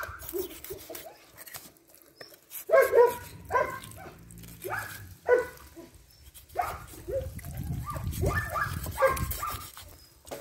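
A dog barking in short, high yips, about eight of them, coming roughly in pairs from about three seconds in.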